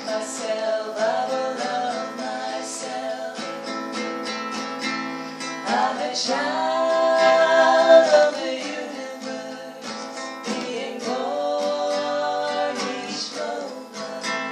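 Acoustic guitar strumming chords, with a voice singing three long held notes over it; the middle note, from about six to nine seconds in, is the loudest.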